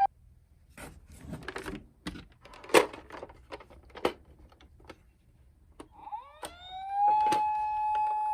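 Scattered light clicks and knocks, then about six seconds in a toy emergency vehicle's siren winds up in a rising wail and holds on a steady high note.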